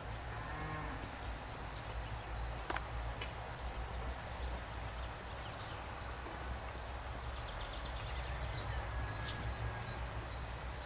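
A small wooden caravan pushed by hand on its wheels over wet asphalt: a steady low rumble with scattered footsteps and clicks, and two sharp knocks about three seconds in and near the end.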